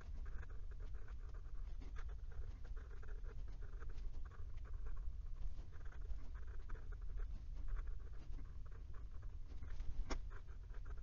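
Mini fude (bent) nib of a Wing Sung 601 fountain pen scratching across lined notebook paper in quick cursive strokes, with small ticks as the nib lifts and sets down. A sharper tap of the nib on the paper comes about ten seconds in.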